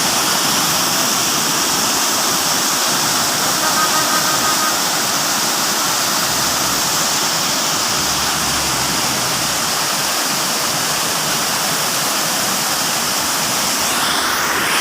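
Steady, loud rush of a mountain waterfall, water pouring down fast.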